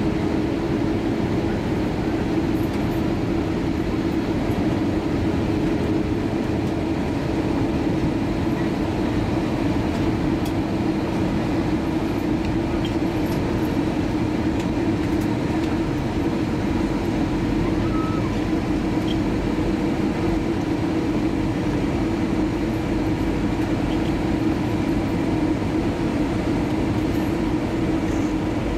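Steady cabin noise of an Airbus A320-232 heard at a window seat beside the wing: the IAE V2500 turbofan's even hum and rushing airflow during the approach, with no change in engine pitch.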